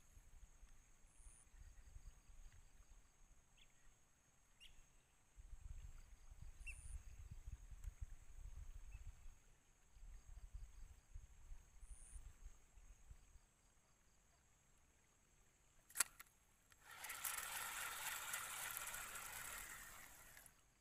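Quiet reservoir-side ambience: a low rumble of wind on the microphone and a few faint bird chirps. About sixteen seconds in comes a single sharp click, then a few seconds of splashing water that stops just before the end.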